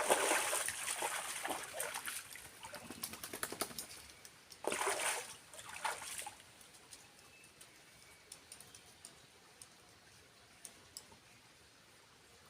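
Water splashing and sloshing in irregular bursts, with the loudest splash about five seconds in, then dying away to a faint background with a few small clicks.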